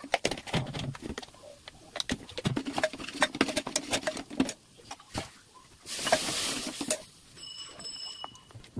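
Metal ladle stirring and scraping frying masala in an aluminium pressure cooker: a run of clinks and scrapes, with a burst of hiss about six seconds in. A short high tone sounds near the end.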